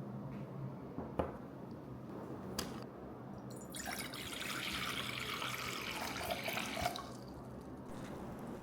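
Two light knocks, then water poured into a container for about three seconds.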